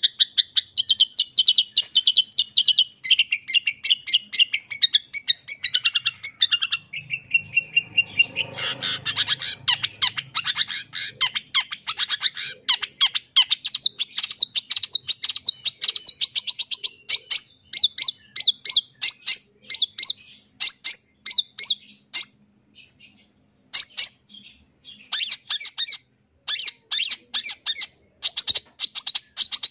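Long-tailed shrike (cendet) singing a fast, loud chattering song of rapid sharp notes strung into long runs, laced with phrases mimicked from other birds. The song breaks off briefly about three-quarters of the way through, then resumes.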